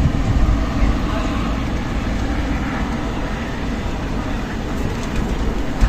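Strong desert wind blowing in gusts, with a heavy low rumble of wind buffeting the microphone.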